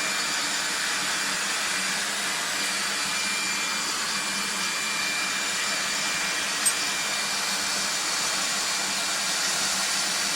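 Vacuum cleaner running steadily with a constant whine, driving the airflow through a homemade birdseed husk-separating machine. A single sharp tick comes about two-thirds of the way through.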